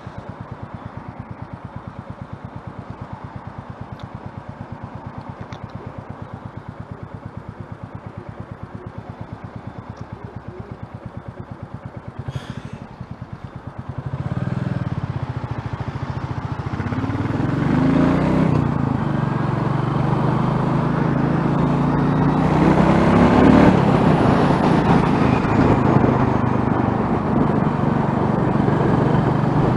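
Motorcycle engine idling with an even beat in stop-start traffic, then about halfway through pulling away and accelerating, its pitch rising through two gears as wind noise builds.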